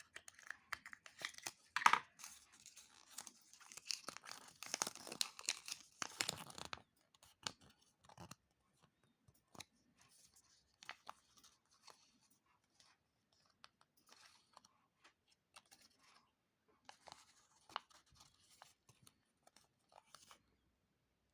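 Foil wrappers of Kinder Surprise chocolate eggs being torn open and crinkled. The tearing is dense for about the first seven seconds, then gives way to scattered small clicks and rustles.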